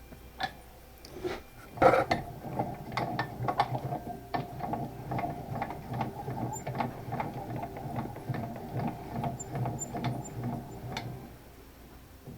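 Milling machine cutting plastic: a steady motor tone with scratchy, crackling cutting noise. It starts sharply about two seconds in and stops about a second before the end.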